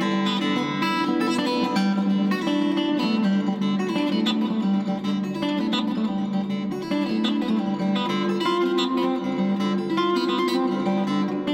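Acoustic guitar music playing steadily, with plucked and strummed notes.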